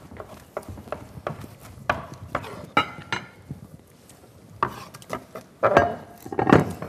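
Kitchen knife chopping roasted peppers on a wooden cutting board: a run of irregular sharp taps, with a louder clatter of handling a little before the end.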